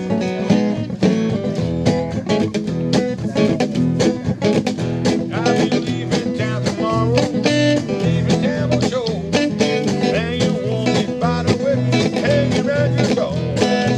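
Guitar music with quickly picked notes in a steady rhythm.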